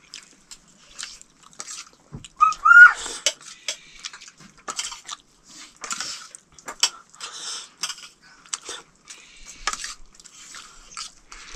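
Clicks and scrapes of someone eating from a plate, scooping food with a hand or utensil, with chewing in between. Between two and three seconds in, a brief high-pitched call stands out as the loudest sound.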